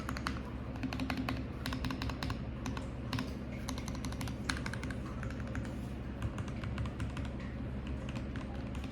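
Typing on an RK G68 mechanical keyboard with lubed Kailh Box Red linear switches and cherry-profile keycaps: irregular runs of keystroke clacks that thin out after about halfway, over a low steady hum.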